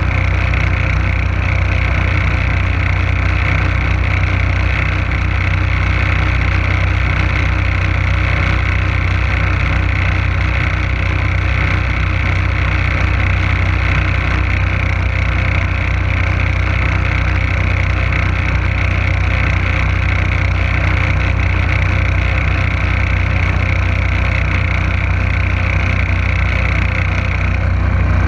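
A small boat's motor running steadily under way, a constant low drone with the hiss of water churned up in the wake.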